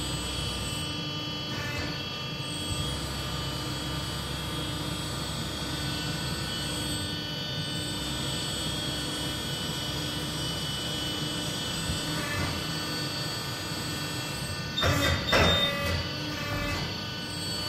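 Ferro TBE 160 tyre changer running, its drive motor humming steadily with a slow low pulse while a large earthmover tyre is worked with the bead-breaker disc pressed against the bead. A brief burst of louder scraping and knocks comes about fifteen seconds in.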